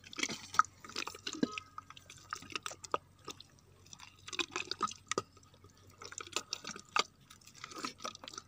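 Wet mud squelching and dripping in irregular short smacks as hands dig into a swamp-eel burrow in soft mud.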